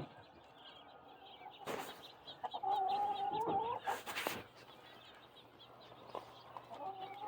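A hen calling loudly: one drawn-out call about two and a half seconds in, and another starting near the end. Two brief knocks come between the calls.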